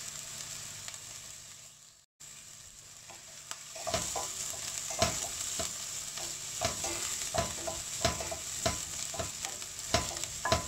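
Chopped onion and garlic sizzling in oil in a stainless steel pot, with a short break about two seconds in. From about a third of the way through, a spoon stirs the pot and knocks against its side over and over, each knock ringing briefly.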